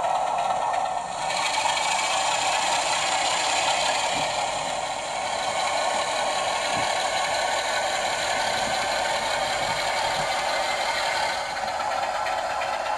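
Sound-fitted OO gauge Bachmann model of a British Rail Class 47 diesel locomotive running on the layout. Its small onboard speaker plays the diesel engine sound over the rattle of the model on the track. The sound turns brighter and hissier about a second in and eases back near the end.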